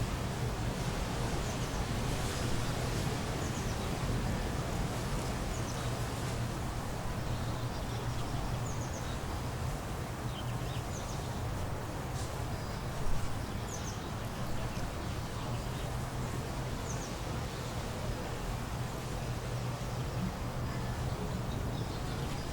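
Outdoor ambience: a steady hiss over a constant low hum, with faint, short, high chirps from birds or insects scattered throughout. A brief louder sound about thirteen seconds in.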